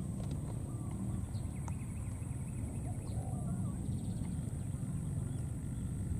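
Faint, short animal calls, clucks or chirps, scattered over a steady low rumble, with a thin high steady whine in the background.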